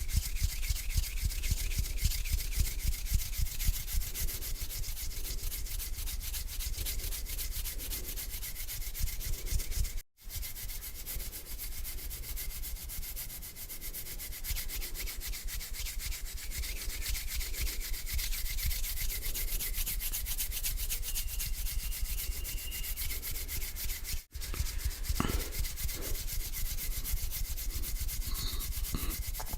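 Bare hands rubbing together, a continuous scratchy swishing of skin on skin that cuts out for a split second twice, about ten seconds in and again near twenty-four seconds.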